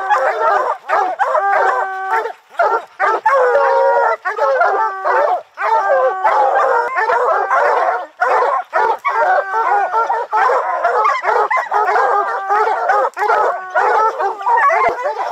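A pack of bear hounds baying together at the tree, many overlapping long drawn-out bays and shorter barks without a break. This is the tree bark, the sign that the hounds have their bear treed.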